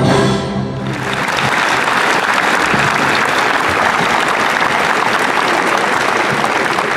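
A large audience applauding, the clapping swelling in as the orchestra's final chord dies away about a second in.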